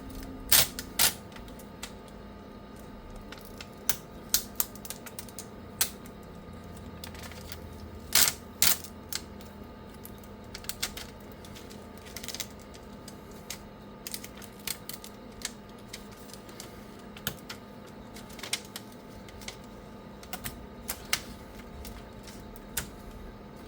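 Irregular light clicks and taps of small laptop parts being handled and pried during disassembly, a few to several a second at times, over a faint steady hum.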